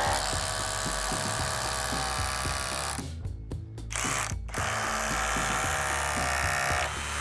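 Yellow DeWalt cordless drill running with a steady motor whine, which stops briefly a little after three seconds in and starts again. Background music plays under it.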